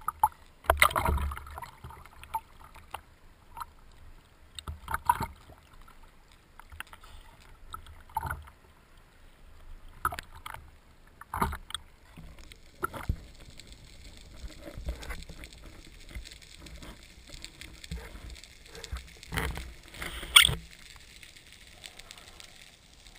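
Sea water splashing and sloshing against a speargun-mounted action camera at the surface, in separate splashes every second or two. Partway through the camera goes under, and gurgles and bubbling follow, loudest a little before the end.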